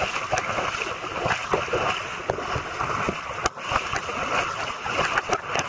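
Heavy rain falling on a flooded lane, a dense steady hiss of drops splashing on standing and running water, with scattered sharp ticks, the strongest about halfway through.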